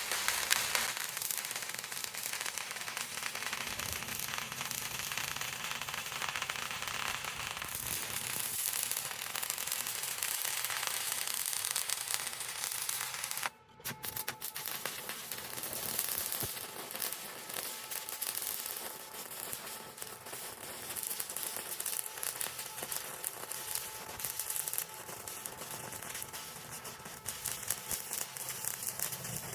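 Stick-welding arc from a Riland 200SE inverter welder burning a 6013 rod: a steady crackling sizzle, with a brief break about halfway through.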